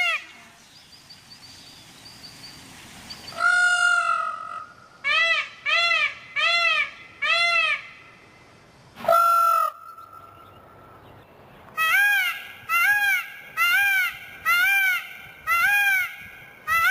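Creature sound effect of a giant hybrid bird: short, honking calls that each rise and fall in pitch. A single call comes, then a group of four, another single, and near the end a quicker run of about seven.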